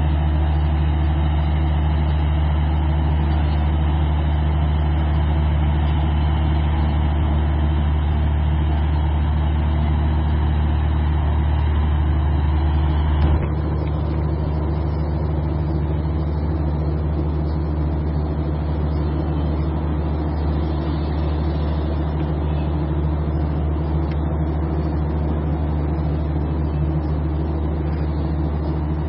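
A steady low engine hum, like a motor idling close by. About 13 seconds in it changes abruptly and drops a little in level, then carries on steadily.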